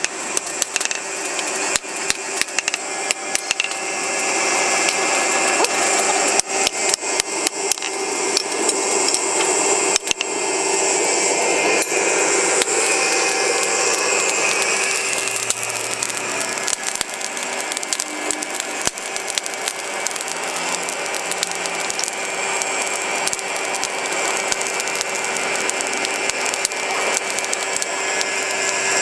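Hand hammer striking a red-hot steel hoe blank on an anvil in quick repeated blows, over the steady whine of the forge's air blower. The blows come thickly for about the first twelve seconds, then thin out, leaving mostly the blower's hum.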